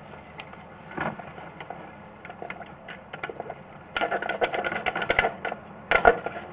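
Sewer inspection camera push cable and camera head clicking and rattling as the cable is fed into a 6-inch cleanout pipe. The clicks are scattered at first and become dense, rapid clattering about four seconds in.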